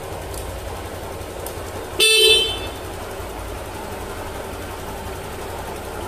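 Honda Vario 150 scooter's horn sounding once, a short beep of about half a second, about two seconds in, over the steady hum of its single-cylinder engine idling. The horn is being checked while the scooter's electrics are still in their normal state.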